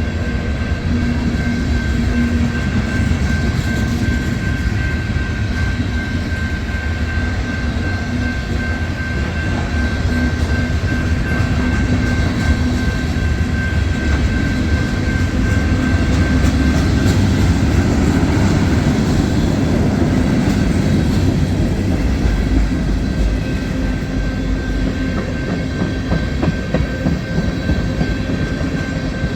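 Freight cars of a long CSX mixed freight train rolling past: a steady loud rumble of steel wheels on the rails, with some clickety-clack at the rail joints. A thin, steady high tone runs throughout, and the rumble swells a little about halfway through.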